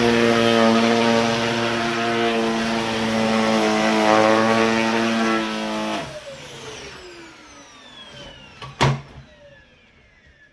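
Dyson DC50 Rollerball vacuum cleaner running with a steady motor whine and rush of air, sounding normal again now its clogged internal filter has been cleared of dog hair. About six seconds in it is switched off and the whine falls in pitch as the motor spins down, followed by a single sharp knock.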